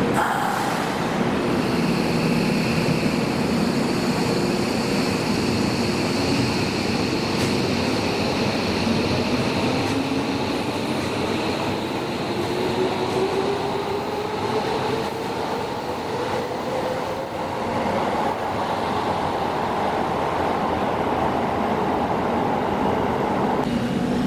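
A Hibiya Line subway train pulling away. The motor whine rises steadily in pitch as the train gathers speed, over continuous rail and running noise.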